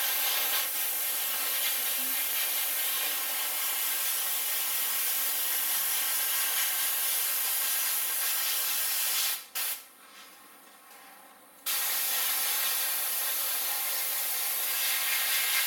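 Airbrush spraying black etch primer: a steady hiss of air and paint that stops for about two seconds past the middle as the trigger is let go, then starts again.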